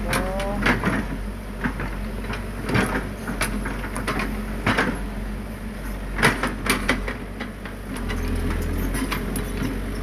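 Hydraulic excavator's diesel engine running steadily while the machine works, with irregular sharp knocks and a short rising whine near the start.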